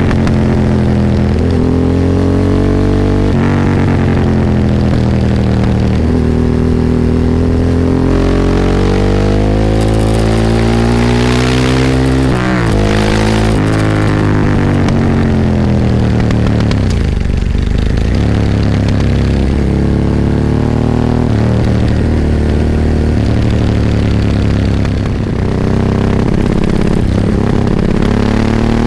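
Ducati 998's 90-degree V-twin engine heard on board under way, revving up through the gears with a sudden drop in pitch at each upshift. Around the middle it winds down as the bike slows, then pulls up through the revs again.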